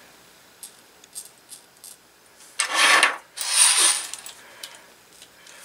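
Hands handling a small model engine and its parts at a bench: a few light clicks, then two short rubbing, rasping scrapes about three seconds in, followed by more light ticks.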